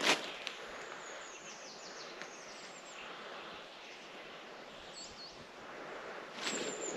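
A small bird gives several short, high, thin falling calls over quiet outdoor background hiss. A footstep is heard right at the start, and footsteps on a path start again near the end.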